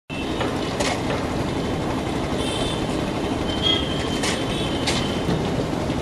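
Busy street noise: a steady rumble of motorbikes and cars with a few short high-pitched horn beeps and a few sharp knocks.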